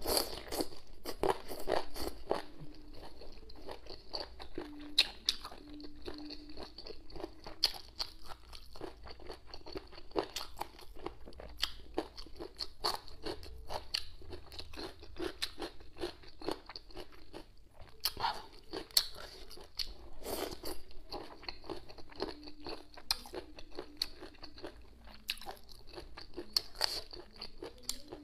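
Eating boneless chicken feet and cucumber: frequent, irregular crunchy bites and chewing.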